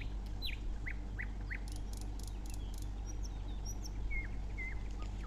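Birds chirping in the background: five quick falling chirps in the first two seconds, then a few short whistled notes in the second half, over a steady low hum.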